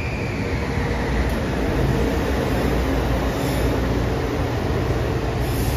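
Metro-North M8 electric multiple-unit train running along the platform: a steady rumble of wheels and running gear with a low hum. A high whine fades away in the first second.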